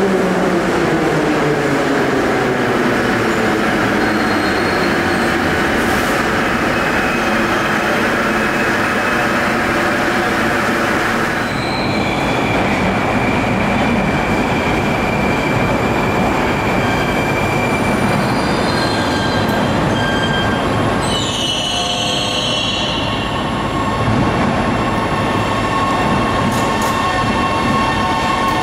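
Moscow Metro Ezh3 track-recording car running through a station: its traction motors whine falling in pitch as it slows over the first few seconds, under a loud rumble of wheels on rails. Steady high wheel squeal rings out through the rest.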